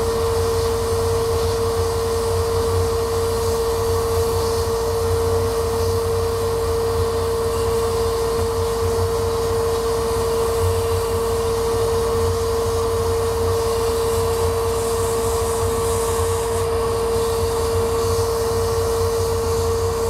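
Laser cutter engraving a wooden sheet: a steady machine hum with one constant mid-pitched tone running underneath.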